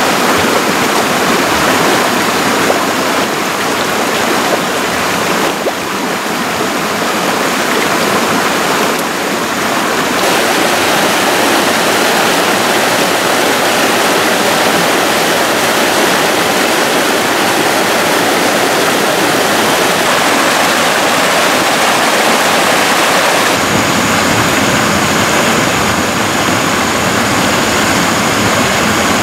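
Shallow rocky stream rushing and splashing over stones in small cascades, a steady loud wash of water. About three-quarters through it takes on more low rumble.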